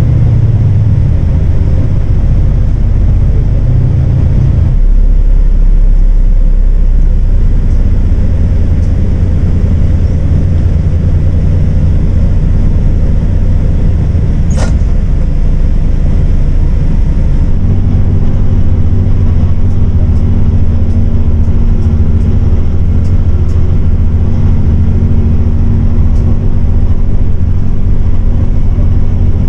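Inside a MAN 18.350 city bus on the move: the diesel engine runs steadily under the rumble of road and tyre noise. The engine note shifts about five seconds in and again a little past halfway. A single sharp click comes near the middle.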